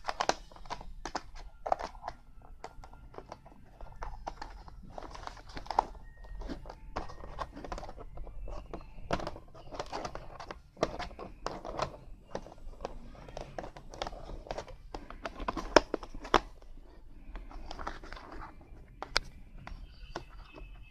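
Action figure packaging being opened and handled by hand: plastic and cardboard crinkling and rustling, with many irregular clicks and snaps.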